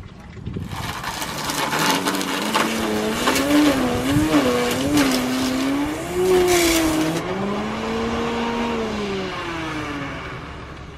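Corded electric string trimmer running, its motor whine wavering up and down in pitch as the line whips through the grass with a loud hiss. The hiss stops about seven seconds in, and the motor whine then fades away near the end.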